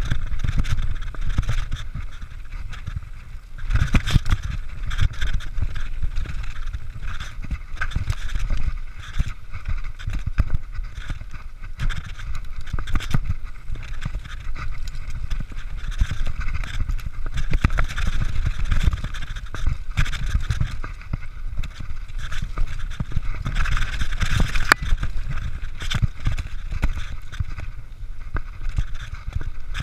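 Mountain bike riding fast down a dirt forest trail: wind rumbling on the camera microphone, tyres on the dirt, and frequent rattles and knocks from the bike over bumps.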